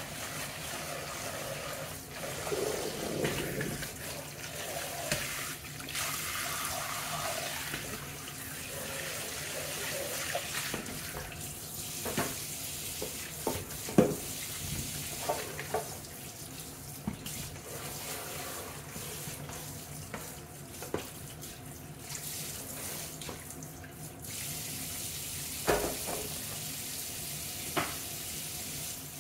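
Kitchen tap running steadily into a stainless steel sink while a plastic bowl and a cutting board are scrubbed with a sponge under the stream. A few sharp knocks of things against the sink come through, the loudest about halfway through and two more near the end.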